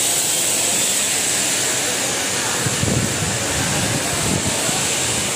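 A steady rushing hiss, with a few low thumps around the middle.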